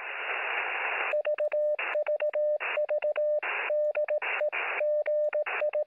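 Morse code heard on a radio receiver: a single steady beep keyed in short and long elements (dots and dashes), with radio static hissing in every gap. The first second or so is static alone, before the keying starts.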